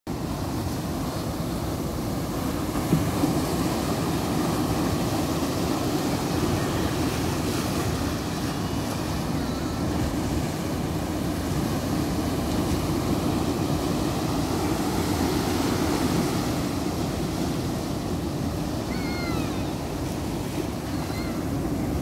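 Sea waves breaking and washing up a sandy beach against boulders: a steady rush of surf and foam. There is a brief bump about three seconds in.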